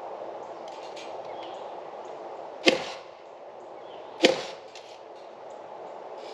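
Nails being driven into wooden roof trusses: two sharp bangs about a second and a half apart, each ringing briefly.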